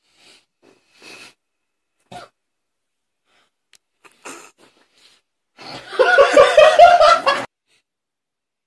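A person laughing loudly in a rapid run of short bursts for about two seconds near the end, after a few faint breaths or murmurs.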